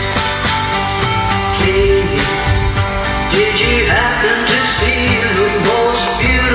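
A woman singing a karaoke song cover over a backing track of strummed guitar and a steady beat; her voice comes in about two seconds in, after the guitar intro.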